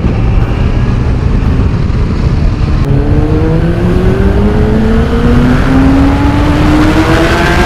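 Motorcycle riding with heavy wind noise on the camera microphone. About three seconds in the sound changes sharply, and the Kawasaki ZX-10R's inline-four engine climbs steadily in pitch as the bike accelerates.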